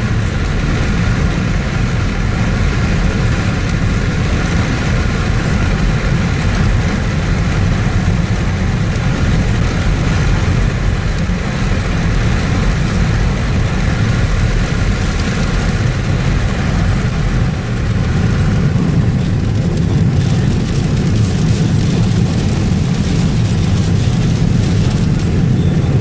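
Steady vehicle engine and road noise, a continuous low rumble with no breaks.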